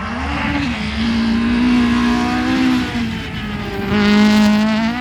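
Rally car engine at full throttle as the car passes, its pitch climbing slowly. About three seconds in the note drops off briefly, then comes back louder.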